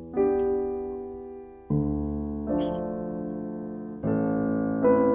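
Soft background piano music: slow sustained chords, a new one struck about every second and a half and left to fade.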